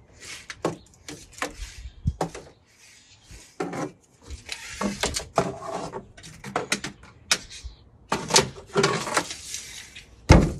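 Tape measure and vinyl soffit panels being handled overhead while stud spacing is measured: irregular clicks, knocks and short scraping rustles, with a heavier thump near the end.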